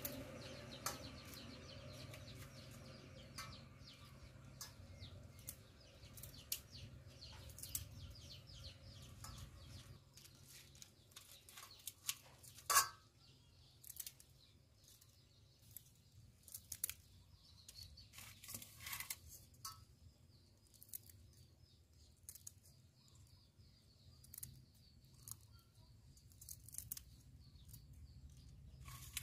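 Scissors snipping the antennae and legs off raw prawns: a scatter of short, sharp clicks at an uneven pace, the loudest snip about halfway through.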